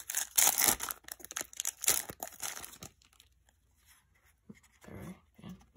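Foil booster-pack wrapper being torn open and crinkled, a loud crackling for about the first three seconds. After that it goes mostly quiet, with a few soft sounds near the end.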